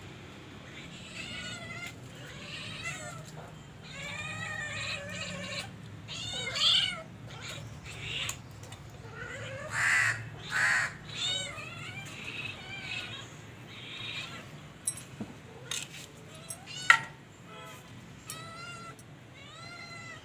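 Kitten meowing over and over, a run of short rising-and-falling meows, some loud and drawn out, with a sharp click near the end.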